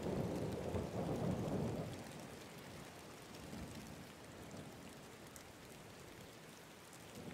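Steady rain with a low rumble of thunder that fades away over the first two seconds, leaving quiet, even rainfall.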